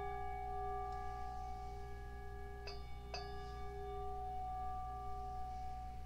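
Slow meditation music of struck bell tones that ring on and overlap, with two strikes close together a little under halfway through and a fainter one about a second in, over a low steady hum.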